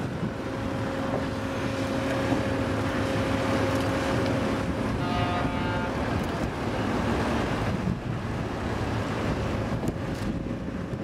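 Wind buffeting the microphone over a steady low machinery hum on a dockside. About five seconds in, a short pitched tone sounds briefly, and the hum fades soon after.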